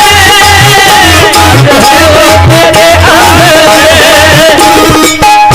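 Live Hindi bhajan music: a wavering melody over a steady drum beat, about two to three low strokes a second.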